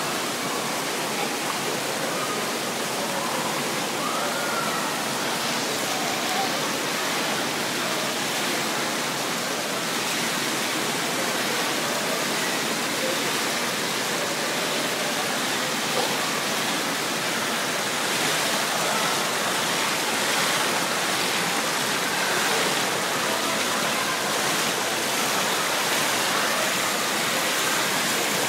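Steady rushing and bubbling of churning pool water, with faint voices in the background.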